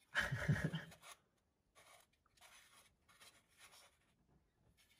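Rubbing and scraping of a hand working among the hoses and plastic parts of a pickup's engine bay. The loudest scrape comes in the first second, followed by faint, scattered rustles.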